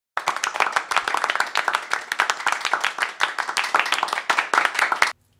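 Applause: many hands clapping in a dense, irregular patter, starting abruptly and cutting off suddenly near the end.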